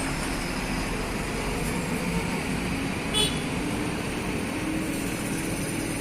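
Heavy truck engine running steadily amid road traffic noise, with a brief high-pitched squeal about three seconds in.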